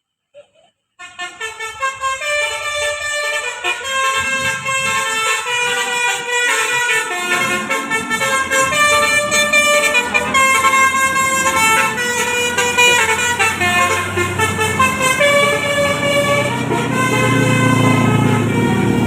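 Bus telolet horn, a Basuri multi-tone horn, playing a quick melody of short notes that starts about a second in. A bus engine's rumble grows louder over the last few seconds.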